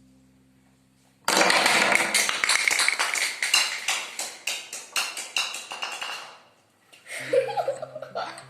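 A ball knocking down a set of toy bowling pins: a sudden loud clatter about a second in, as the pins fall and rattle against each other and the floor, thinning out and dying away over about five seconds.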